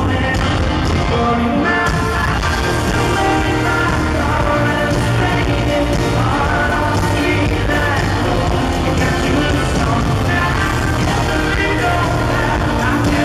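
Live country-rock band playing loudly: a male lead singer over electric guitar and a drum kit, heard through a crowd-side recording.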